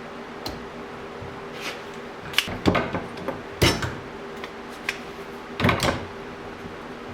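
A handful of irregular metal clanks and knocks, as of tools or steel being picked up and set down on a workbench, over a steady hum.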